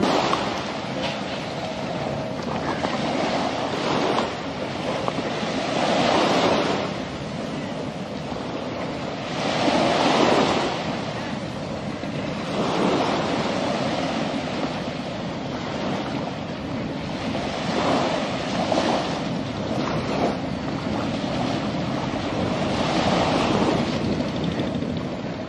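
Sea surf: waves washing and breaking in surges that swell and ebb every few seconds, with wind.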